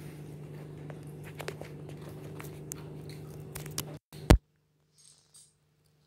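Small clicks and taps of someone eating at a table over a steady low hum. About four seconds in the sound drops out, a single sharp knock follows, and then it is nearly silent.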